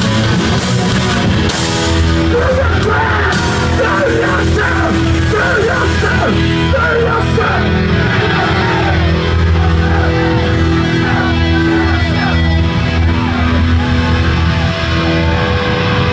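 Punk band playing live at full volume: distorted electric guitar and bass chords over drums, with shouted vocals through most of it.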